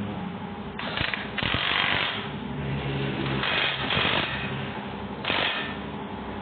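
Mechanic's tool working the fasteners of a pickup's front suspension during a lower ball-joint replacement: four short rattling bursts, about a second or less each.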